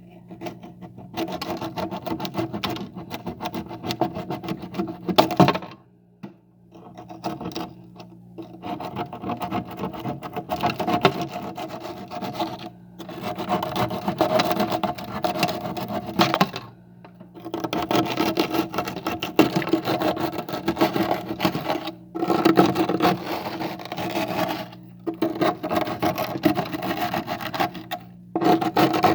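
Freezer frost being scraped off in runs of rapid rasping strokes, each run several seconds long, with short pauses between them. A steady low hum runs underneath.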